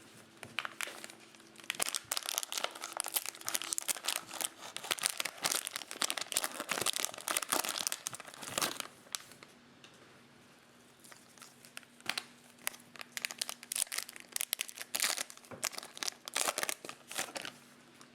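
A trading-card pack's foil wrapper being crinkled and torn open, with cards handled, in two spells of rapid crackling separated by a quieter pause of a couple of seconds.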